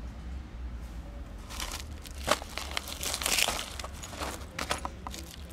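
Rustling and crinkling as hands rummage in a zippered fabric medicine bag and take out medicine, with sharp crackles. It starts about a second and a half in and is loudest a little after two seconds in and again around three seconds in.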